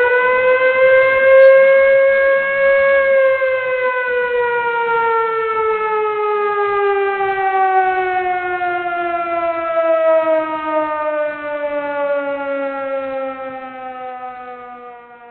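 Time's-up warning siren sounding one long wail. It finishes rising in pitch about two seconds in, holds, then slowly winds down in pitch and fades away near the end.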